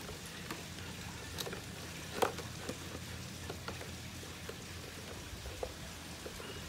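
Hands handling and fitting the canopy of an Align T-Rex 600L Dominator RC helicopter: scattered light clicks and taps, the sharpest about two seconds in, over a steady low hum and faint crackle.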